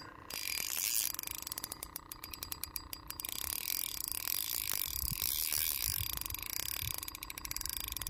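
Spinning reel's drag clicking in fast runs as a hooked fish pulls line off, running from the net.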